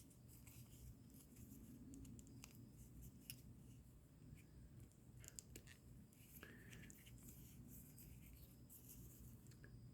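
Faint handling sounds of a pocket watch and its paper booklet being slid back into their packaging: scattered light clicks and rustles, with a short squeak about six and a half seconds in.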